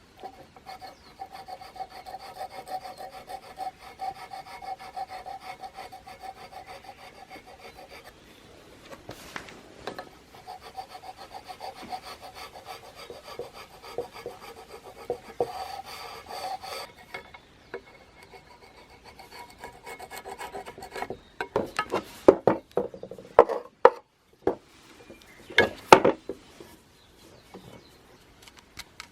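Fast back-and-forth scraping or rasping strokes, like brushing or filing by hand, in two long spells. Near the end come a few loud knocks and clatters.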